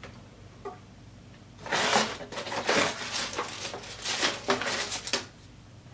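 Cardboard box and plastic packaging rustling and crackling as an accessory is pulled out, starting about two seconds in and stopping a second or so before the end.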